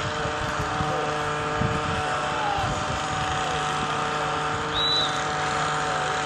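A steady mechanical hum, like a running engine, with several fixed tones and a low rumble, under faint distant shouts. About five seconds in comes one short, high referee's whistle blast, blowing the play dead after the tackle.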